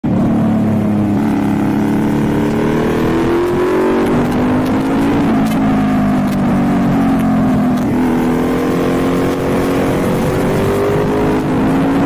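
Motorcycle engine and exhaust heard from on board while riding, its revs climbing and dropping several times with the throttle, over steady rushing noise.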